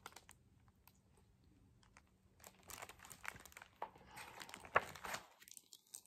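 Pages of a large picture book being turned: a faint paper rustle with a few crisp crinkles and clicks, starting about halfway in after a couple of seconds of near silence.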